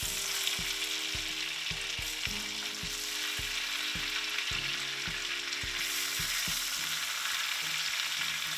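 Butter and vegetable oil sizzling steadily in a hot frying pan. Low, regular thumps run underneath.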